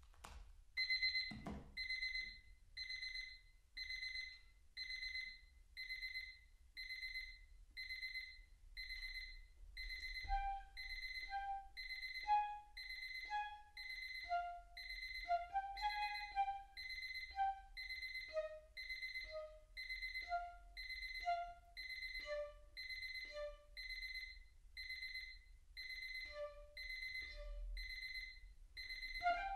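Electronic alarm clock beeping about once a second in a steady high-pitched pulse. About ten seconds in, a piccolo joins with short low notes set between the beeps, stepping gradually down in pitch. The first beep is preceded by a brief click and a low thump as the clock is handled.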